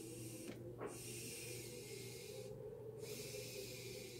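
Airy hiss of long, hard draws on a counterfeit calabash pipe, a couple of seconds each with short breaks between. The pipe is being drawn hard to keep it lit; its stem joint leaks air.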